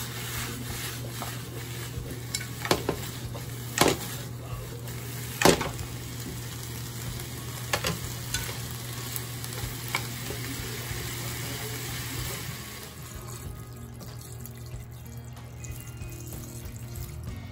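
Beef, onions, carrots and potatoes sizzling in a frying pan as they are stirred, with several sharp knocks of the utensil against the pan. About two-thirds of the way through, the sizzle stops and water pours into a pot.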